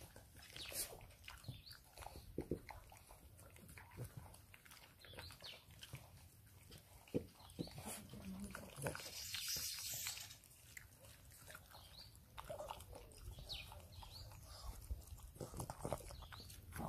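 English bulldog puppy eating minced raw food from a stainless steel bowl: faint, irregular wet chewing, smacking and licking, with a breathy rush of noise about nine seconds in.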